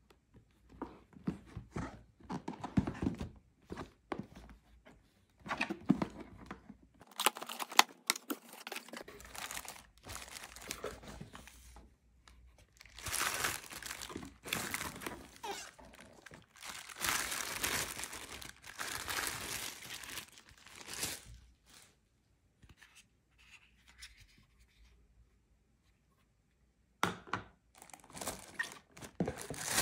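Unboxing packaging being handled: plastic wrap crinkling and rustling around a plastic part and cardboard box flaps being worked, with sharp clicks and a few knocks, in irregular bursts. There is a lull of a few seconds near the end.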